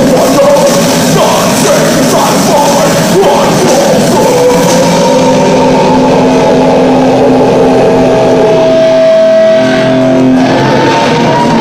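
Heavy metal band playing live: distorted electric guitars and bass with drums. About five seconds in the cymbal wash falls away and held guitar notes ring on, until a new rising note comes in near the end.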